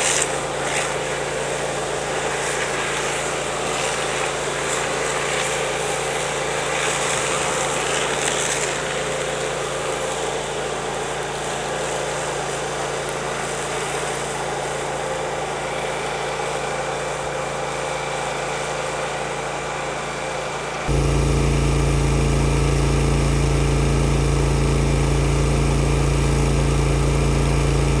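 An engine running steadily at constant speed. About three-quarters of the way through it suddenly becomes much louder, with a strong deep hum.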